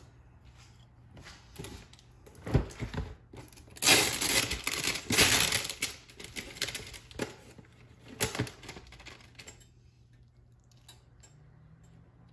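Slotted spatula scraping and knocking against a stainless frying pan and a ceramic plate as pasta is lifted out and served: a run of irregular scrapes and clinks, loudest about four to six seconds in, stopping near ten seconds.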